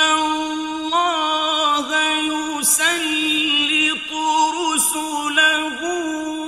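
A man's voice reciting the Quran in a slow, highly melodic style, holding long sustained notes with sliding ornamental turns and dips between syllables. Two brief hisses of consonants cut in about two and a half and almost five seconds in.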